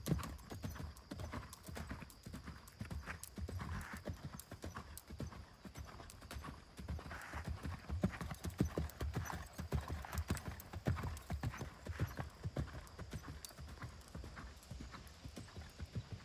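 Horse's hooves striking sandy arena footing at the trot, a steady rhythm of soft thuds.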